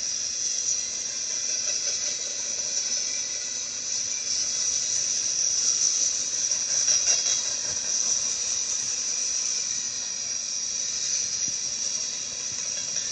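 Freight train rolling past, heard through a railcam's microphone as a steady, high-pitched hiss of steel wheels on rail with a faint ringing underneath, swelling slightly about halfway through.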